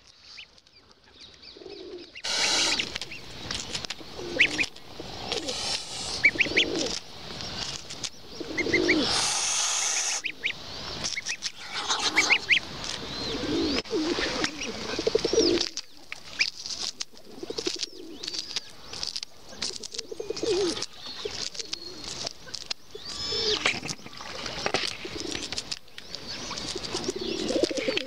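Greylag goose goslings peeping over and over in short, high rising and falling calls, starting about two seconds in, mixed with lower cooing from feral pigeons and a few short rushes of noise.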